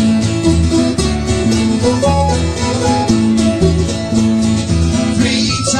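A folk band playing a sea shanty, with a steady beat and a bass line under the tune.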